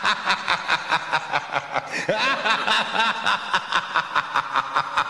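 A man's cackling laughter in quick, evenly repeated pulses: a Joker-style villain laugh.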